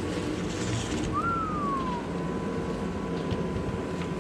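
A steady low machine drone with a thin steady tone above it; about a second in, a short whistle-like tone rises and then slides down in pitch.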